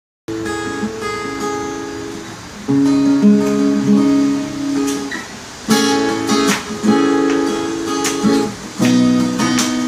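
Acoustic guitar played solo: slow picked notes and chords, a fresh chord struck every one to three seconds and left to ring.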